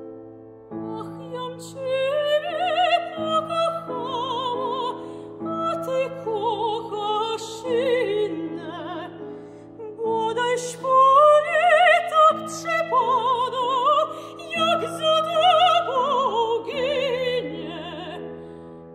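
Soprano singing a classical art song with wide vibrato, accompanied by chords on a Steinway grand piano; the piano sounds alone at first and the voice enters about a second in.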